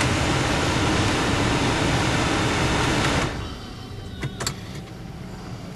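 Loud, steady rush of wind and road noise in a moving car's cabin, cutting off abruptly about three seconds in. A quieter cabin follows, with a couple of short clicks.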